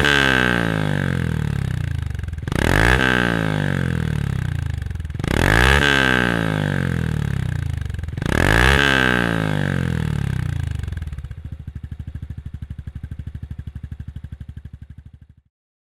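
A Honda CT125's single-cylinder engine breathing through a Moriwaki stainless full exhaust system, blipped four times: each rev rises and falls, about every three seconds. It then settles into a steady, pulsing idle, and the sound cuts off near the end.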